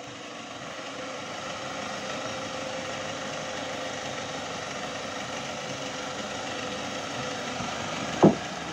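Toyota Hilux pickup's turbo-diesel engine running at a low crawl, getting slightly louder over the first couple of seconds and then holding steady. A single sharp knock near the end is the loudest sound.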